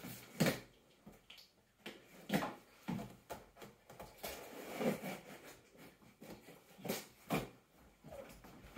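Large cardboard shipping box being opened by hand: irregular scrapes, rustles and knocks of cardboard and packing tape, a second or two apart.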